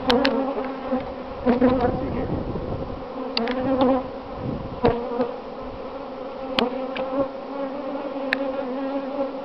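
Swarm of honeybees from the opened hive buzzing in a steady, droning hum, the colony stirred up and defensive. A few sharp clicks and knocks cut through the buzz as the frame is worked loose and lifted out.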